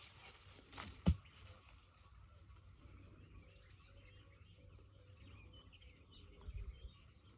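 Insects calling in a high, steady trill that pulses about twice a second, with a single sharp knock about a second in and a few low thumps near the end.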